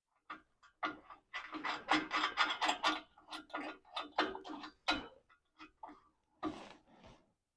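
Hand ratchet wrench clicking in quick runs as it tightens the nut on an exhaust pipe clamp.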